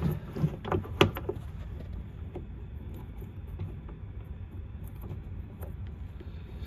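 A few sharp clicks and taps of small metal parts being handled, the loudest about a second in, then only a low steady rumble with faint ticks.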